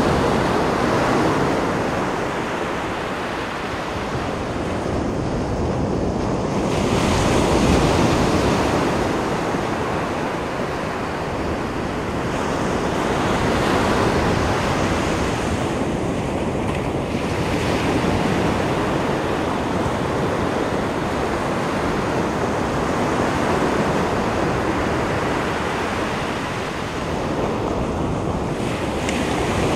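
Ocean surf: waves breaking and washing up a beach in a continuous rush that swells and eases every several seconds.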